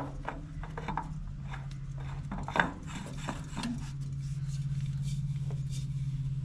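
Wix 51515 spin-on oil filter being threaded by hand onto a diesel generator's filter adapter: scattered rubs, scrapes and light clicks of hand and filter against metal over the first few seconds. A steady low hum runs underneath and grows a little louder about four seconds in.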